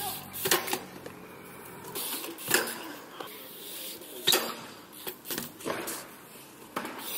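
BMX bike hitting and riding along a concrete ledge: several sharp knocks and clatters, the loudest about half a second, two and a half and four seconds in, with lighter rattling clicks between.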